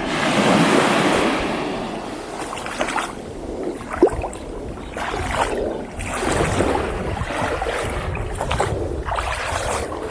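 Pacific Ocean surf breaking and washing up the beach. One loud surge peaks about a second in, and smaller wash-ups follow every couple of seconds, over a low wind rumble on the microphone. A single sharp tap sounds about four seconds in.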